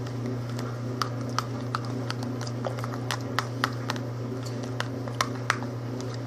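Irregular light clicks and taps of a utensil pressing and packing chopped ginger and minced garlic down into a plastic medicine bottle, over a steady low hum.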